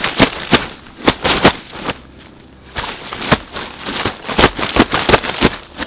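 A large carp thrashing inside a fabric weigh sling: an irregular run of sharp slaps and thumps against the material, in flurries of several a second with short pauses between. The fish is kicking and agitated, "not happy".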